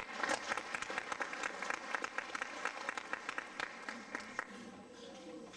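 Audience applauding with many separate hand claps, thinning out and fading away about four and a half seconds in.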